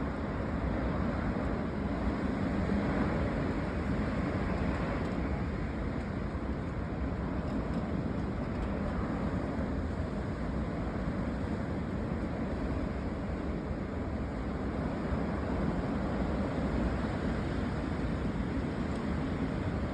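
Dust-storm wind blowing hard and steadily, a low, even rushing noise.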